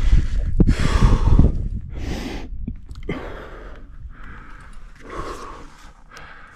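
A climber breathing hard, with several heavy breaths in and out a second or two apart. In the first second and a half there are loud low bumps and rumbling against the microphone.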